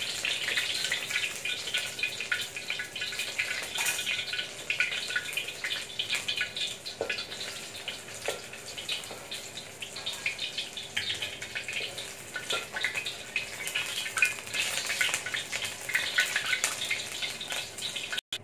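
Battered enoki mushrooms deep-frying in oil in a stainless steel wok: a steady crackling sizzle full of small pops, with a few sharper clicks along the way. The sizzle cuts off suddenly near the end.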